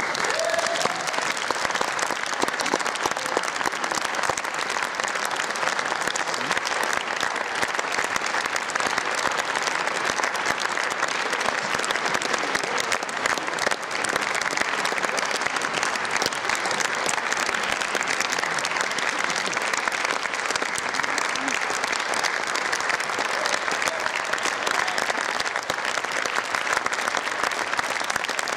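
Audience applauding, starting all at once and continuing steadily without a break.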